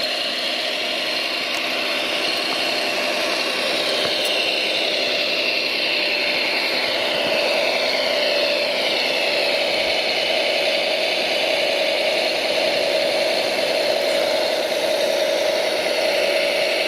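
Radio-controlled construction machine model running with a steady motor whine. Several higher tones slide up and down between about four and nine seconds in as the machine works.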